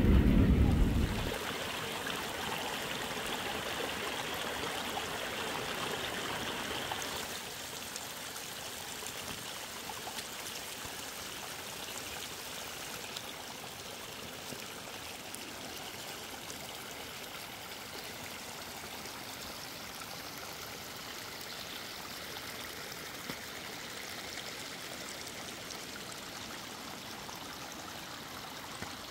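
Muddy rainwater runoff flowing in shallow rivulets over stones and mud: a steady watery hiss, a little louder for the first several seconds. A loud low rumble at the very start cuts off about a second in.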